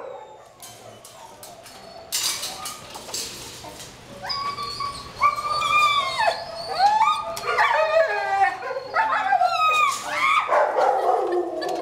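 An excited dog whining and yelping in a run of high, sliding cries, starting about four seconds in and coming in quick succession. A brief clatter comes about two seconds in.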